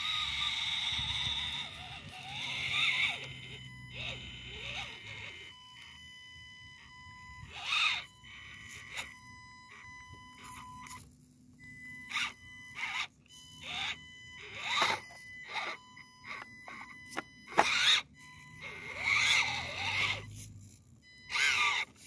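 Axial SCX24 micro rock crawler driving over rocks: its small electric motor and gears whine in on-and-off spurts with the throttle, steady in pitch. The tyres and chassis scrape and knock on the stones, with one sharp knock about three-quarters of the way through.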